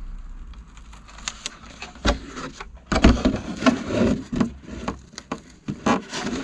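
Masking tape being peeled off a painted RC truck body shell: irregular crackling and sharp clicks of tape and thin plastic, starting about two seconds in.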